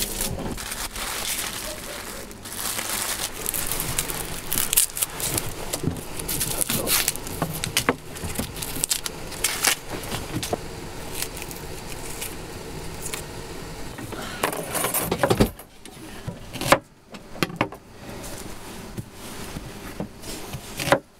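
Food-preparation clatter: a string of short knife clicks and scrapes on food and a wooden board, with light clinking of metal utensils and skewers.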